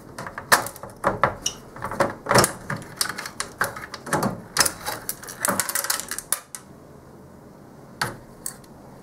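Sheet-metal clatter and knocks as a power supply unit on its metal mounting plate is worked loose and lifted out of a metal network-switch chassis. A dense run of clicks and knocks lasts about six seconds, then one last knock comes near the end.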